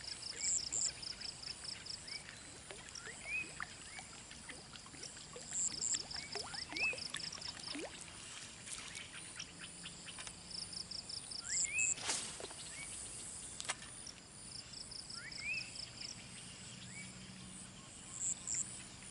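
Outdoor ambience of birds and insects: a bird repeats a short rising call every couple of seconds, while insects chirp in rapid high-pitched pulse trains that come and go. There are two sharp clicks a little past the middle.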